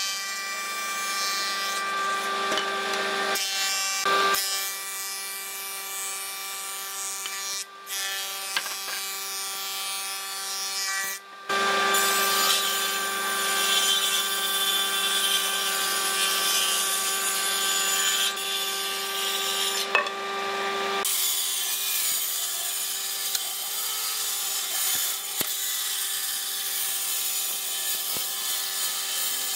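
A combination woodworking machine running and cutting wood, first planing a board, then its table saw ripping boards. It is a steady motor whine over the hiss of the cutting. The sound changes abruptly a few times where one clip gives way to the next.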